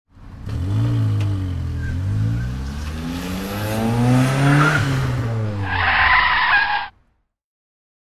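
Car engine revving up and down several times, with a screech near the end; the sound cuts off abruptly.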